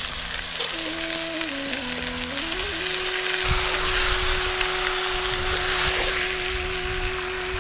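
Raw country-chicken pieces sizzling in hot sesame oil in an earthen clay pot, fresh into the oil, with a steady hiss, while a wooden spatula turns them.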